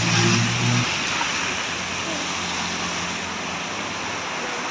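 Steady rain falling, an even hiss. A low engine hum stops about a second in.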